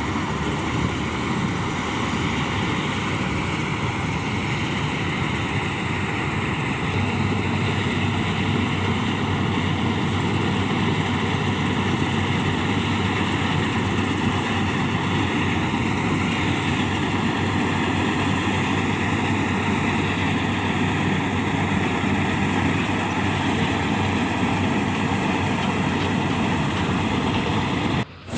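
Farm machinery engine, from a combine harvester or tractor, running steadily under load. The sound drops out briefly near the end.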